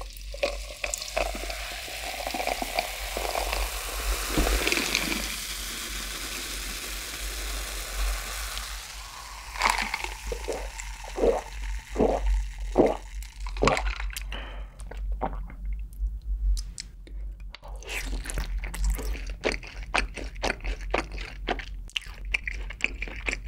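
Dark fizzy soda poured from a glass bottle over ice into a glass mug, hissing as it fills. About ten seconds in comes a run of about seven gulps as it is drunk, followed by light clicks and taps.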